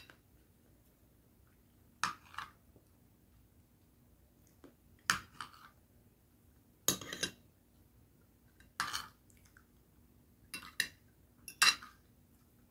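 Spoon and fork clinking and scraping against a plate during a meal: short, sharp clinks, sometimes in quick pairs, every second or two.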